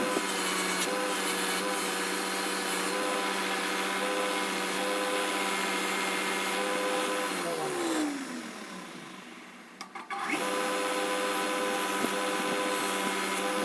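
Power-driven wire wheel running steadily as it shapes knife handle scales, with the rub of the scale material against the wheel. About eight seconds in, the motor winds down, its pitch falling away, and about ten seconds in the sound comes back abruptly at full speed.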